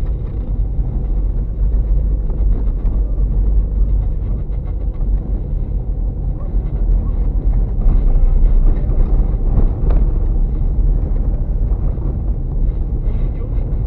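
Car driving slowly on a rough, rutted dirt road, heard from inside the cabin: a steady low rumble of engine and tyres, with scattered knocks and rattles from the bumps.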